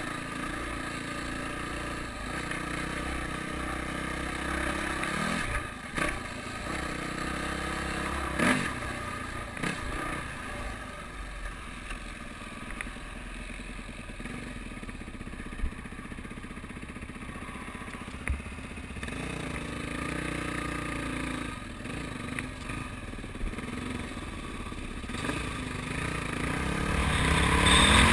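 Dirt bike engine running while riding a rough dirt trail, with several sharp knocks and clatter from the bike over the ground. The engine gets louder near the end as the throttle opens.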